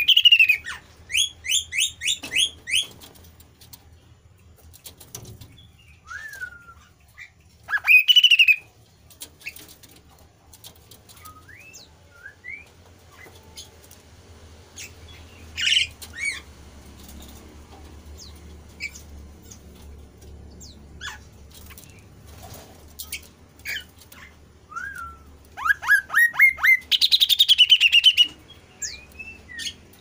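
Caged kasu-kasu songbird singing: loud bursts of quick, repeated rising notes at the start and again near the end, with single loud calls and short chirps in between. A faint steady low hum underneath.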